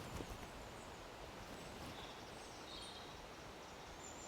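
Faint steady outdoor background noise with a few faint high chirps about two to three seconds in.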